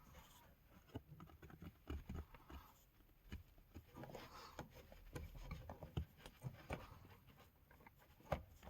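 Faint, scattered plastic clicks, knocks and rubbing as the low-pressure fuel pump assembly of a Peugeot 508 is worked loose and lifted out of the fuel tank by hand.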